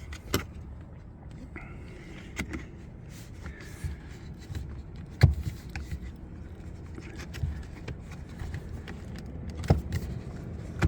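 Scattered plastic clicks and knocks of a clip-on door pull cover being handled and pressed onto a BMW 335i's interior door handle, with one sharper knock about five seconds in, over a faint low outdoor rumble.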